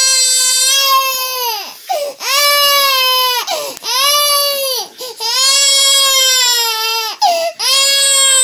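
A toddler crying hard: a run of long, high-pitched wails, each one to two seconds long and dropping in pitch at its end, with short breaths between them.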